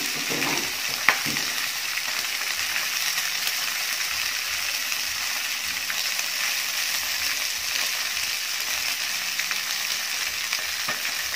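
Two whole tilapia frying in hot oil in a pan: a steady sizzle, with one sharp click about a second in.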